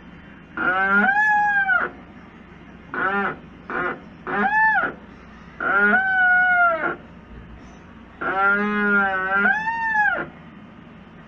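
LG Turbo Drum washing machine squealing each time the drum turns during the wash: a string of loud pitched squeals, each rising, holding and falling, with short pauses between them. The noise comes from lack of maintenance and is cured by lubricating the transmission and brake with powdered graphite.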